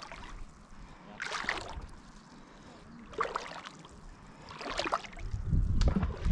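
Shallow lake water splashing and lapping close to the microphone, in short splashes about every second and a half, with a low rumble joining near the end.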